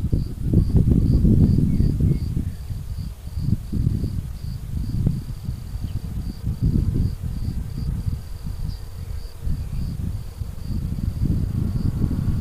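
Crickets chirping in a steady pulsing rhythm, about three chirps a second, over a low, uneven rumble that swells and fades.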